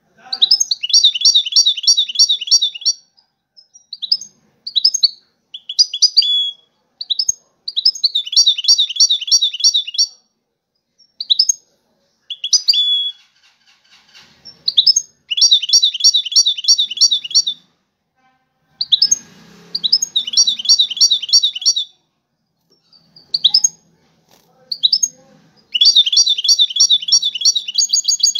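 Caged European goldfinch of the Moroccan 'Widani' type singing. It gives five bursts of fast, high trilled song, each about two seconds long, with short chirps and pauses between them.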